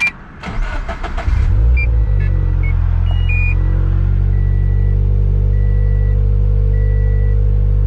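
2013 Scion FR-S's turbocharged flat-four engine, fitted with a Greddy T518Z turbo kit, being started for the first time since the kit went on. The starter cranks it for about a second before it catches, flares briefly and settles into a steady idle. A high electronic beep sounds at even intervals over the idle.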